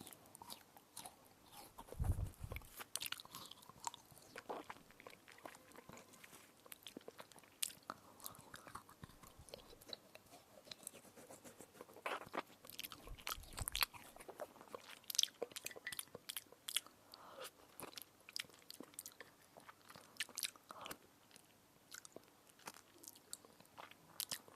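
Close-up crunching and chewing of a crisp edible spoon: irregular sharp crackles as it is bitten and ground between the teeth, with a couple of soft low thuds about two and thirteen seconds in.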